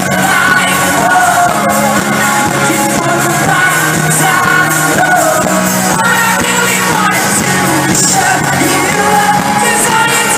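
Live pop-rock band playing loudly, with a male lead vocalist singing over electric guitars and drums, heard from within the audience.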